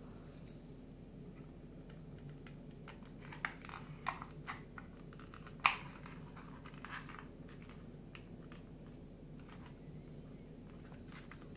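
Card pieces of a 3D puzzle being handled and pressed into place: scattered soft clicks and scrapes, a few in the middle and the sharpest just before halfway through.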